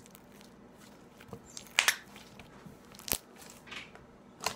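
Thick, clicky slime with fishbowl beads being pressed and folded by hand, giving a handful of sharp clicks and bubble pops, the loudest a double pop just before two seconds in.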